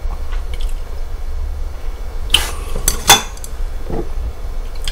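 Eating utensils clinking against dishes at a table: a couple of sharp clinks a little past two seconds in and the loudest about three seconds in, over a low steady room hum.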